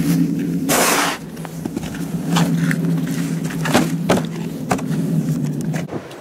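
A roughly 10 horsepower gasoline snowblower engine running steadily with a low drone, on a freshly changed spark plug. A brief loud rush of noise comes about a second in, and a few sharp clicks or knocks follow. The engine note ends near the end.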